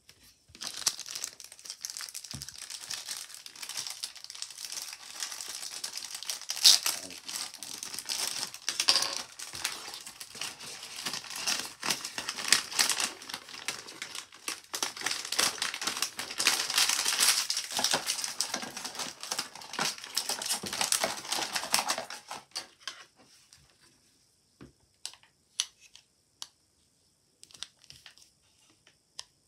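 Plastic packaging crinkling and rustling as it is handled and opened, continuously for about twenty seconds before it stops. A few faint plastic clicks follow as a clear plastic base is fitted to a small plastic figure.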